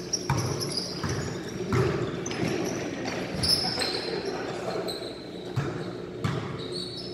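Basketballs bouncing on a hard indoor court: a handful of separate, irregularly spaced thuds in a large hall.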